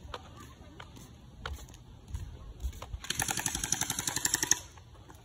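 Electric gel-ball blaster (splat gun) firing a full-auto burst: a rapid, even rattle of shots lasting about a second and a half, starting a little past halfway. A few faint knocks come before it.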